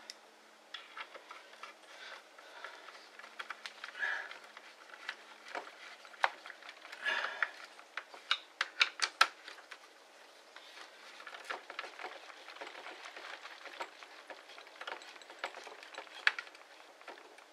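Scattered small clicks, taps and rustles of hands handling the plastic housing and small parts of a Ridgid X2 cordless hammer drill during reassembly, busiest about halfway through.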